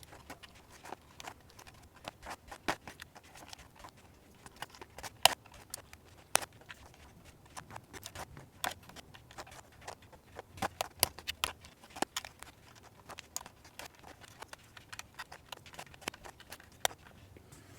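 Cherry MX silent linear switches being pushed into the hot-swap plate of a Glorious GMMK Pro keyboard: irregular small plastic clicks and snaps as each switch seats, sometimes several in quick succession.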